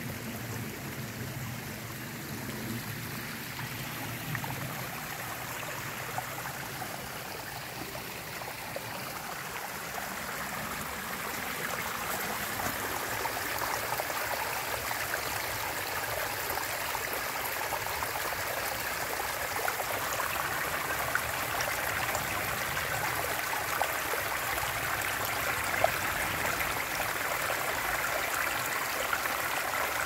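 Small rocky mountain brook trickling and splashing over stones in a little cascade, a steady rush of water that grows louder about a third of the way in.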